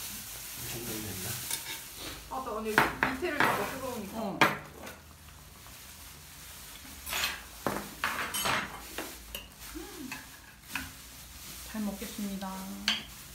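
A metal ladle scooping and clinking against a pot of soup as it is served, with bowls, dishes and spoons clinking in between.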